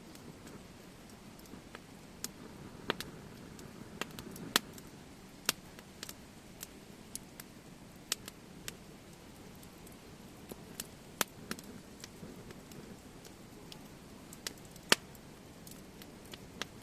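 Wood fire crackling: irregular sharp pops and snaps over a low steady background noise, with a few much louder pops scattered through, the loudest near the end.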